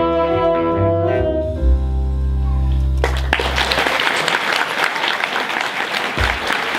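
A saxophone ensemble finishes a jazz tune on a long held final chord, which cuts off about three seconds in. Audience applause breaks out right after and carries on.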